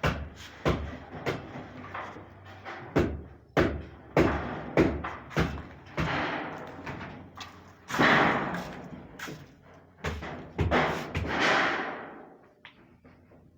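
Demolition of a house wall: repeated heavy blows, roughly one to two a second, and twice a longer rush of falling rubble lasting a second or two.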